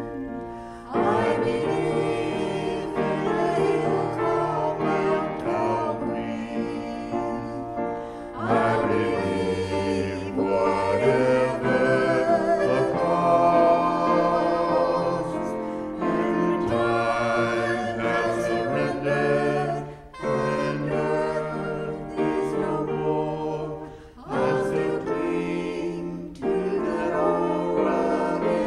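A mixed vocal trio of two women and a man singing a gospel song in harmony into microphones. They sing in long held phrases, with brief breaks between them about every four to eight seconds.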